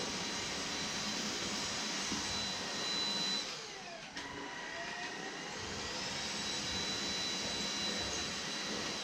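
Dibea C17 cordless stick vacuum running on max mode, a steady motor whine with airflow hiss. About three and a half seconds in, the motor winds down with a click, then spins back up to full speed and runs steadily again.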